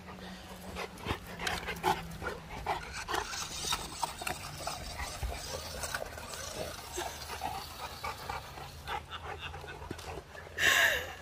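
Dogue de Bordeaux dogs panting and snuffling as one mouths and chews a plastic toy remote-control car, with scattered small clicks and knocks throughout. A short, louder rush of noise comes near the end.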